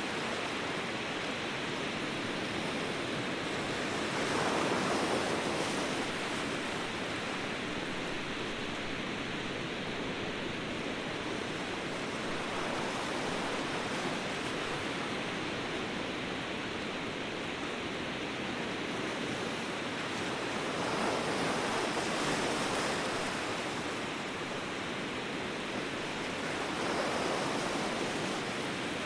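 Ocean surf: a steady rush of waves that swells a little about four seconds in, again past the twenty-second mark, and near the end.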